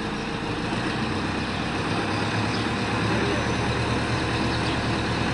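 Tractor-mounted stone crusher at work: the tractor engine runs under steady load while the crusher's toothed rotor spins through stony soil, a dense, even mechanical noise with a low hum that grows slightly louder about two seconds in.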